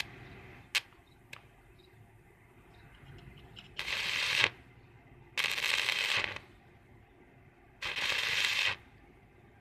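Stick-welding arc crackling in three short bursts of under a second each, about 4, 5.5 and 8 seconds in, as the electrode is struck on the metal and then lifted away. Two sharp clicks sound about a second in.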